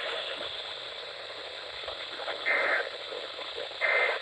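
Two short bursts of EAS digital data tones over weather-radio static, about a second and a half apart, the first about two and a half seconds in and the second near the end. They are the end-of-message code that closes a NOAA Weather Radio required weekly test.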